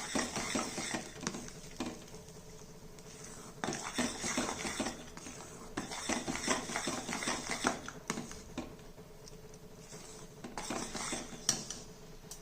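A metal spatula stirring and scraping mashed banana around a kadhai, in four bursts of quick strokes with short pauses between.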